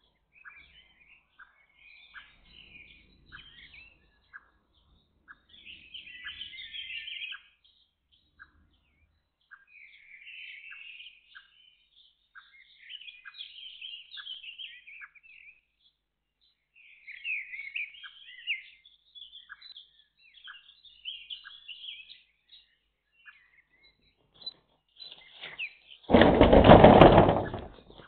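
Several birds singing, one of them repeating a short call about every two-thirds of a second. Near the end a loud, harsh burst lasts about a second and a half.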